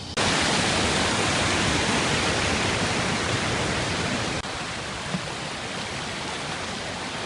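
Hot spring river water rushing steadily, a little quieter from about four and a half seconds in.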